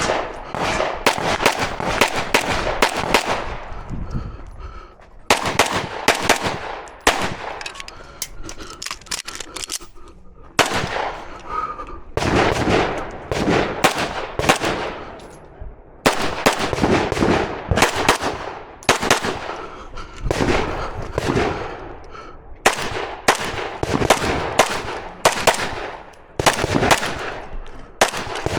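Rapid strings of gunshots from an AR-15 rifle and a pistol, fast shots in bursts broken by short pauses of about a second.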